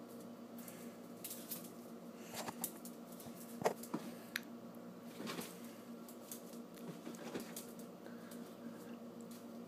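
Small Pomeranian–Chihuahua mix's claws clicking and scrabbling irregularly on a tile floor as it darts about, with a sharper knock about three and a half seconds in. A steady low hum runs underneath.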